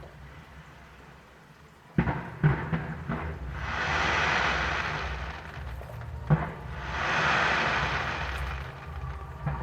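Fireworks display: after a quieter start, a sharp bang about two seconds in, then a few more bangs and long spells of hissing noise as shells burst, with another bang about two-thirds of the way through.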